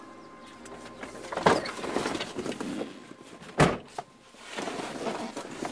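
Someone getting into an older Mercedes-Benz sedan: a thump and rustling about a second and a half in, then the car door slams shut with a sharp, heavy thud about three and a half seconds in.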